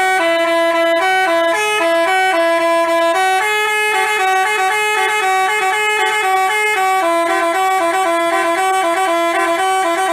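Basuri telolet multi-tone bus horn playing a quick tune, its notes stepping rapidly up and down in one continuous run.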